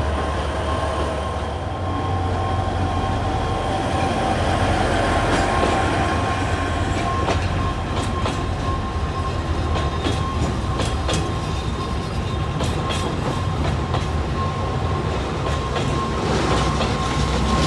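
Alishan Forest Railway narrow-gauge train running on the rails: a steady rumble with scattered clicks of the wheels over the track and a steady thin whine.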